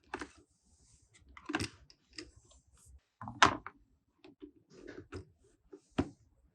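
Toy trains and their packaging being handled by hand: scattered clicks and knocks with some light rustling. The loudest knock comes about three and a half seconds in, and another sharp one near the end.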